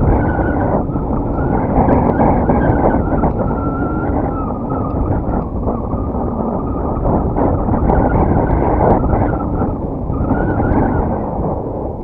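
Strong wind buffeting the microphone: a loud, steady rumble that rises and falls a little, with a faint wavering whistle above it.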